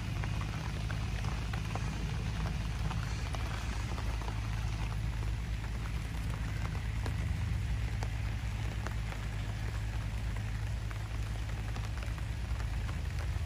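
Steady rain falling, with many small drops ticking close by over a low, steady rumble.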